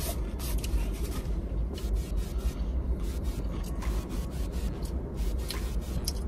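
Soft scraping and rustling as fried chicken is handled and eaten, over a steady low rumble.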